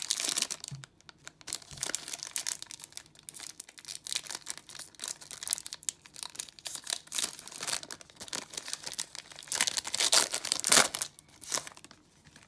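Foil trading-card booster pack wrapper crinkling and being torn open, partly with the teeth, in a long run of crackles with the loudest tearing about ten seconds in.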